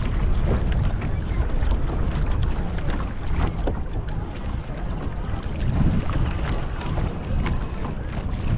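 Wind buffeting the camera microphone on a kayak at sea, a rough, fluctuating rumble, with water slapping and splashing against the hull now and then.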